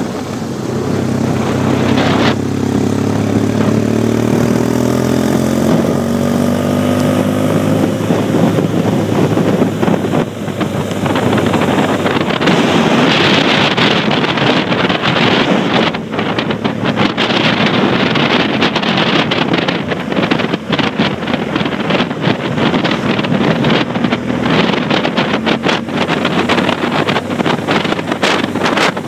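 Motorcycle engine running under acceleration, its pitch rising steadily over the first several seconds. From about ten seconds in, wind buffeting the microphone at road speed takes over, a gusty rushing that largely covers the engine.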